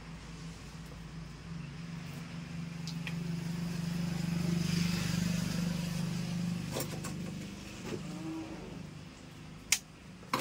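A motor vehicle passing: a low engine hum that swells to a peak about halfway through and then fades. Under it, a plastic-wrapped bundle of net is being handled, and two sharp clicks come near the end.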